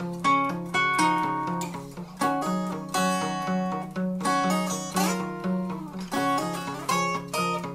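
Two acoustic guitars playing a fingerpicked duet passage, plucked ringing notes over a repeating low bass note.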